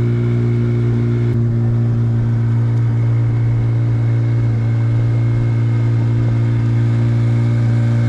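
Motor of a small wooden launch running at a steady, unchanging speed, heard from aboard the boat as it cruises.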